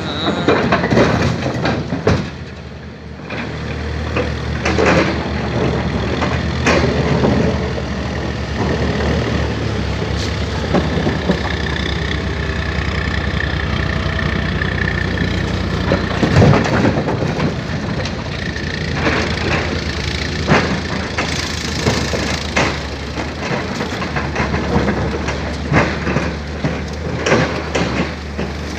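Tata Hitachi excavator's diesel engine running steadily while loading boulders into a truck, with irregular clanks and knocks of rock against the steel bucket and truck bed.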